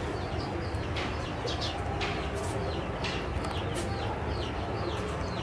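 Chicks peeping: many short, high chirps that each fall in pitch, repeated several times a second, with a few sharp clicks over a steady low background rumble.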